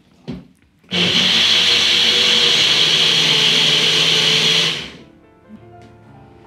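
Small electric personal blender running for about four seconds as it blends soaked almonds, apple pieces and water into almond milk. It starts about a second in and stops suddenly near the five-second mark, leaving soft background music.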